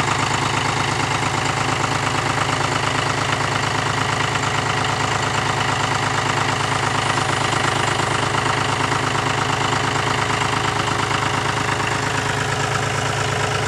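John Deere tractor engine running steadily at low revs, a constant idling hum with an even pulse.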